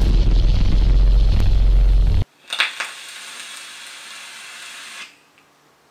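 A loud, deep rumbling intro sound cuts off abruptly about two seconds in. It is followed by the steady hiss and sizzle of a Vape Envii Terra RTA's coils firing as air is drawn through the atomizer. The hiss starts with a few crackles and lasts about two and a half seconds.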